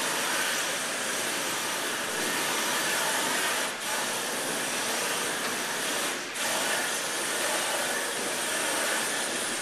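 Shrink-wrap heat gun running with a steady rushing blast as it heats and shrinks the film, dipping briefly twice.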